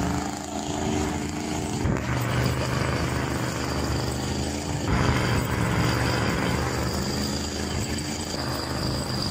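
Pickup truck's engine revving hard under load, with its tyres spinning in snow, as it strains to tow a stuck concrete mixer truck on a strap. The revs surge about two seconds in and again about five seconds in.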